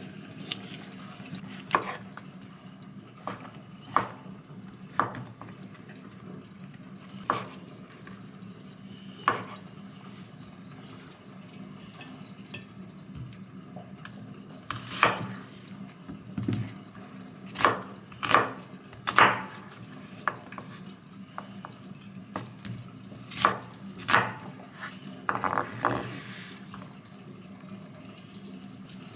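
Kitchen knife cutting an onion on a wooden cutting board: scattered sharp knocks of the blade on the board, louder and closer together in the second half, over a steady low hum.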